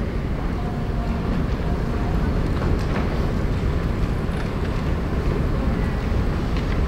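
Steady low rumbling noise, dense and even, with a few faint ticks.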